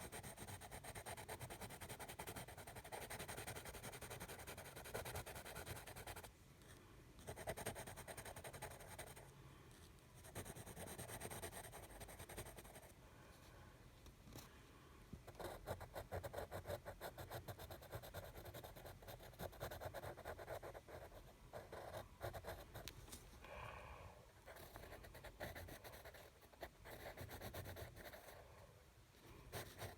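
Faint scratching of a drawing tool on paper, in runs of strokes broken by short pauses.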